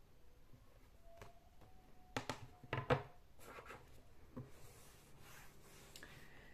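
A small plastic-framed whiteboard being lowered and set down: a quick cluster of quiet knocks and rubs a couple of seconds in, then a single knock a little later.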